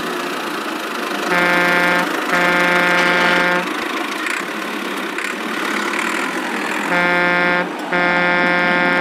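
A vehicle horn honking twice, a pause of about three seconds, then twice again, each honk a steady buzzy tone lasting about a second. Under the honks runs a steady engine-like rumble.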